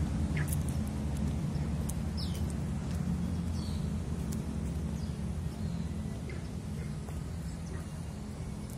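Outdoor ambience: a steady low rumble with a few short bird chirps, one about half a second in and a falling one about two and a half seconds in.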